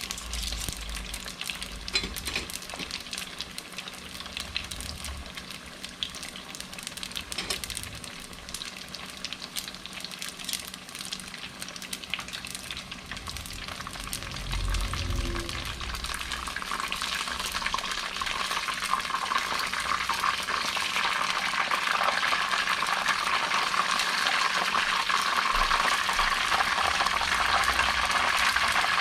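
Chicken egg rolls deep-frying in hot oil: a dense crackling sizzle with scattered pops, growing louder about halfway through.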